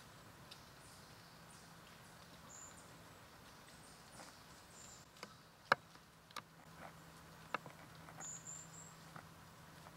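Quiet woods: scattered faint ticks and rustles, with one sharper click a little past halfway, brief high chirps now and then, and a faint steady low hum.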